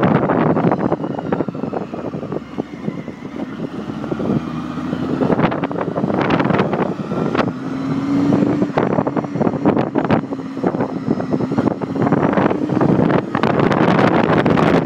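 Wind buffeting the phone's microphone on a moving Honda motorcycle, with the engine's note faintly underneath. The engine note rises slightly partway through.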